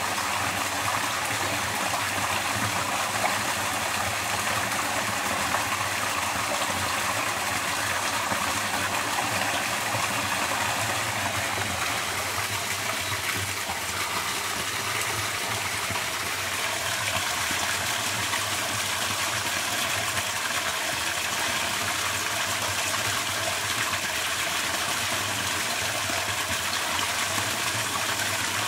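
Small waterfall running over rock into a pool: a steady rush of water.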